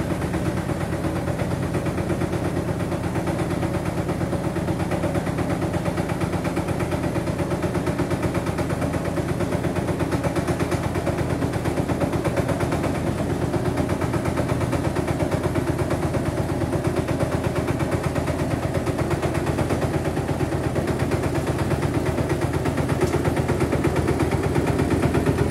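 Small self-propelled concrete mixer's engine running steadily with a rapid, even chugging, getting a little louder toward the end.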